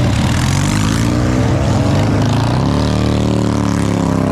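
A vehicle's engine and exhaust, loud, accelerating away as it leaves, its pitch climbing steadily through the second half.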